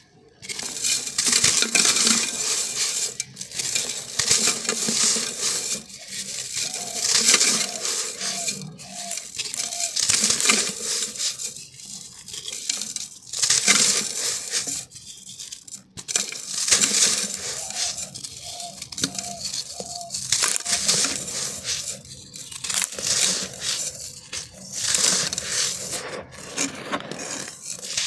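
Dry, gritty black sand being crushed and crumbled by hand in a clay pot: crunching in repeated bursts a second or two apart, with grains spilling and scraping against the pot.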